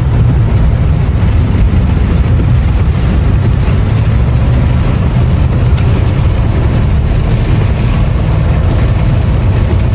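Steady low rumble of an RV driving on a rain-soaked road: engine and road noise at speed.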